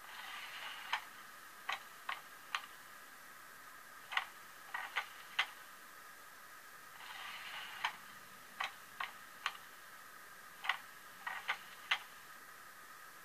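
Sound effects from a Piko sound decoder in an H0 model BR 232 diesel locomotive, played through its small speaker while the model stands still. A short hiss is followed by a run of sharp clicks, and the same hiss-and-clicks sequence comes again about seven seconds later, over a faint steady hum.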